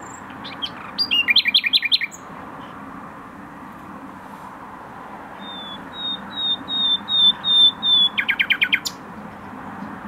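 Common nightingale singing: a fast run of repeated notes about a second in, then a series of high whistled notes that swell in loudness and break into a rapid trill near the end.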